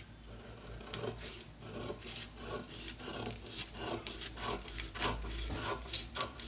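Scissors cutting through a paper sewing pattern: a steady run of rasping snips, about three a second, as the sketched ruffle piece is cut out.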